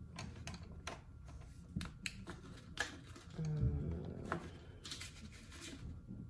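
Paper rustling and scattered light clicks as a stack of fanfold thermal labels is handled and fed into a small thermal label printer, fingernails and paper tapping on its plastic body.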